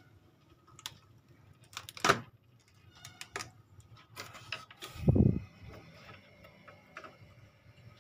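Light clicks and taps of tools being handled on a small circuit board during soldering. About five seconds in there is one short, louder low sound.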